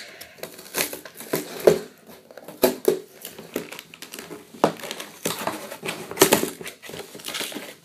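Cardboard LEGO set box being opened by hand: irregular crinkling and rustling with short clicks and knocks as the flaps are torn open and the contents are handled.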